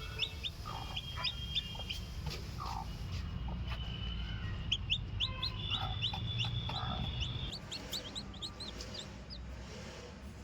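Chickens calling: many short high chirps repeated throughout, with a few lower clucks, over a low steady hum that drops away about seven and a half seconds in.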